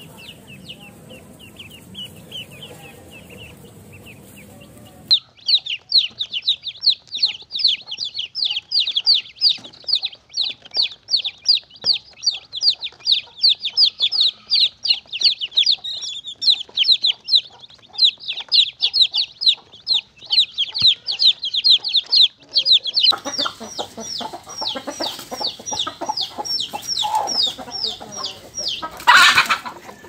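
Young birds peeping: soft, faint peeps at first, then a chick cheeping loudly and rapidly, several high calls a second. Over the last several seconds hens cluck among the peeps, with one loud call near the end.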